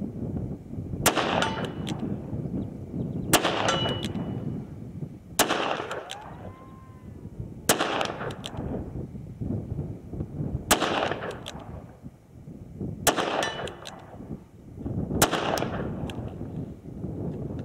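Smith & Wesson 686 Plus Performance Center revolver firing seven single shots about two seconds apart, emptying its seven-round cylinder. Some shots are followed by a faint ring from the steel target being hit.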